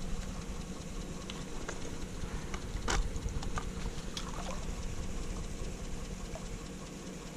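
Light metal clicks and knocks of a Conibear body-grip trap being handled and set, one louder click about three seconds in, with a faint water patter over a steady low rumble.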